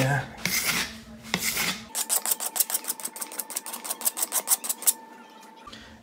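Hand tool scraping lightweight joint compound flat over a wall patch: uneven rubbing strokes at first, then from about two seconds in a quick run of short scraping strokes, about seven a second, which stops about a second before the end.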